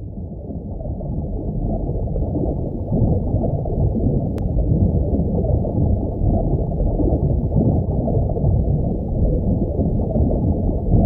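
Muffled underwater ambience sound effect: a deep, steady rumble of churning water with no clear high end, swelling up over the first few seconds.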